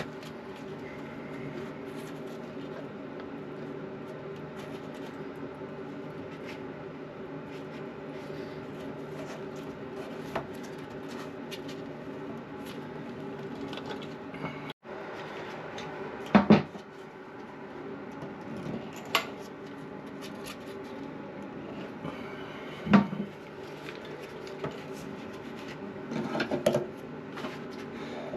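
Plastic toilet parts being handled, with a few sharp knocks and clatter, as the plastic lock nut of a new toilet fill valve is threaded on and snugged by hand. The knocks come mostly in the second half, over a steady low hum.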